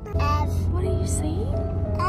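Soft background music with held notes, over the steady low rumble of a car's cabin on the move.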